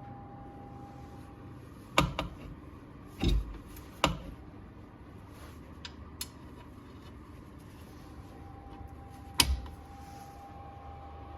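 A few sharp metallic clanks and one duller thump, spaced irregularly, over a faint steady hum.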